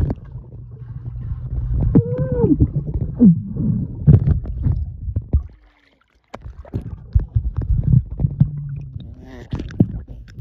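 Swimming-pool water heard through a microphone held underwater: a muffled low rumble with clicks from bubbles and water movement, and a brief muffled gliding hum about two seconds in. The sound cuts out briefly a little past halfway, then water crackles and splashes around the microphone.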